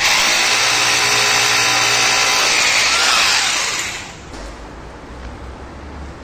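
Electric drill boring a hole in the wall for a wall plug. It starts abruptly, runs steadily for about three and a half seconds, then winds down.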